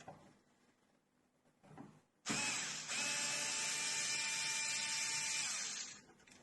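Xiaomi Mijia electric screwdriver running on a door-lock screw for about three and a half seconds, a steady motor whine that starts a couple of seconds in, hitches briefly, then runs on and stops.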